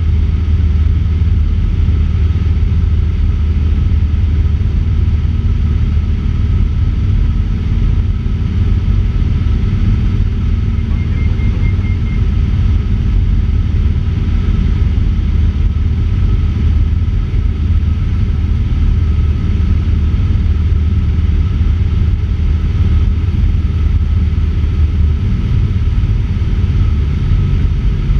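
Cessna 150's four-cylinder Continental O-200 engine and propeller droning steadily in cruise, with airflow noise, heard from outside at the wing. The pitch of the drone shifts slightly near the end.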